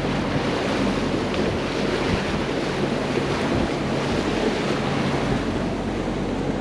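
Wind buffeting the microphone and choppy water rushing past a sailboat's hull, over a steady low drone from the boat's inboard diesel engine while motor sailing.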